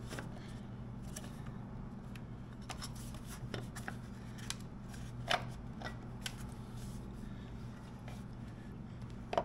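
Scattered light clicks and taps of a hand feeling around and moving the plastic overflow tank and nearby parts on a motorcycle engine, over a steady low hum.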